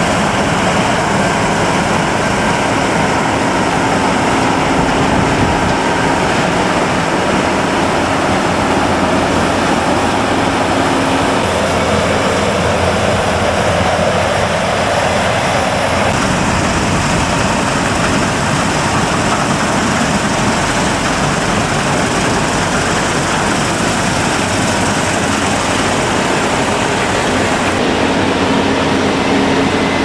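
New Holland CR8.80 combine harvester running steadily while harvesting grain, a dense, unbroken machine noise, with a tractor working alongside. The sound changes character about halfway through.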